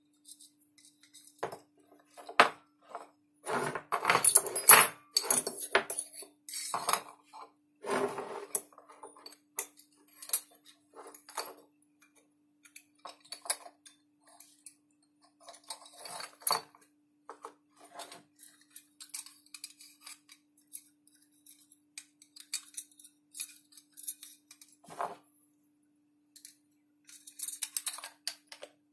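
KJ Works M4 gas-blowback magazine being put back together by hand: its metal and plastic parts click, knock and scrape irregularly as the gas reservoir and follower assembly are slid into the shell. The handling is busiest in the first eight seconds, sparser after, with another flurry near the end.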